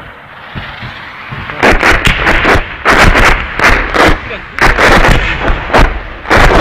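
Salvo of a Grad multiple rocket launcher: a rising rumble, then from about a second and a half in a rapid string of heavy blasts, about three a second.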